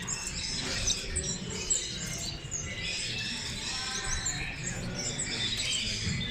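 Many small cage birds chirping and calling over one another in quick, overlapping high-pitched notes.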